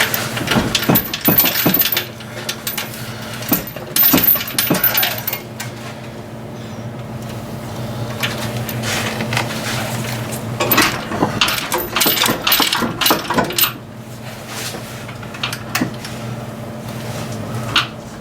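Metal clinking and rattling in irregular bursts, three clusters of sharp clicks with a lone click near the end, as parts are worked during engine removal. A steady low two-tone hum runs underneath.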